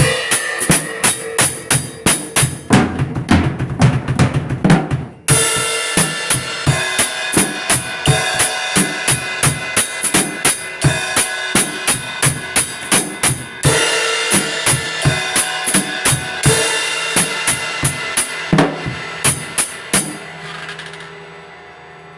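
Drum kit playing a fast, steady beat with cymbals ringing over the hits and crashes about five and fourteen seconds in. The playing stops about twenty seconds in and the cymbals ring out over a low hum.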